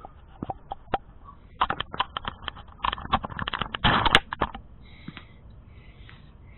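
Handling noise of the camera and hands working under the car: quick light clicks and rustles in two clusters, about one and a half seconds in and again from about three to four and a half seconds in, the loudest near four seconds, then only a faint hiss.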